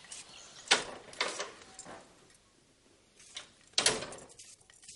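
A handful of irregular sharp knocks and clicks, with a quiet gap in the middle and the loudest knock near the end.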